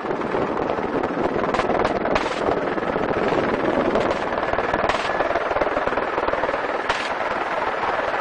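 Helicopter rotor and turbine running steadily at the landing, the blades chopping in a fast, even beat, with a few brief sharp clicks over it.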